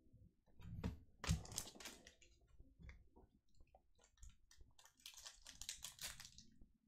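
Trading cards and their plastic packaging being handled close up: a few light knocks and clicks, a crinkling rustle about a second in, and a longer rustle of plastic sliding near the end.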